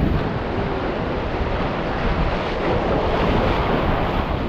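Sea waves surging and breaking against the rocks of a jetty, with wind buffeting the microphone.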